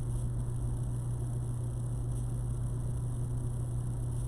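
Steady low electrical hum with a faint hiss over it, unchanging throughout: mains hum in the microphone and sound-system chain.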